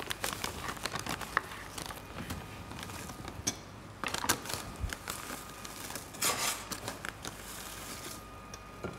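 Plastic food packaging crinkling and rustling, with light clicks and taps of kitchen utensils; the loudest rustles come about four and six seconds in.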